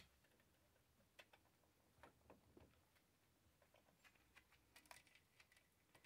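Faint, scattered light clicks and ticks of a chainsaw chain being handled and fitted onto the guide bar.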